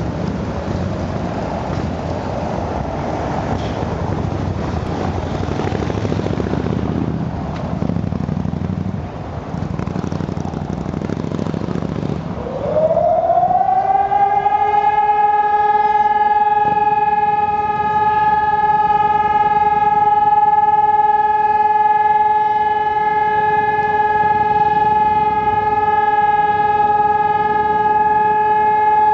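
Background noise of a city square, then about twelve seconds in a civil-defence warning siren starts up: its pitch rises quickly, then holds as one steady, loud tone. This is the continuous tone of the Czech monthly siren test.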